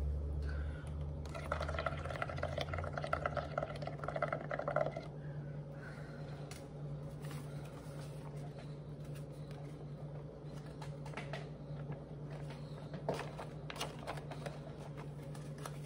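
Bubbling gurgle of air blown through a drinking straw into a cup of soapy, paint-tinted water, lasting a few seconds, then a few short paper rustles and taps near the end as a sheet of paper is pressed onto the bubble foam.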